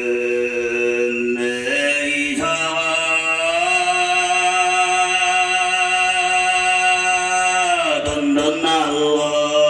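Tuvan throat singing: a man holds long, droning chanted notes with a steady high overtone ringing above the drone. The pitch steps to a new note about two seconds in and drops again near the end.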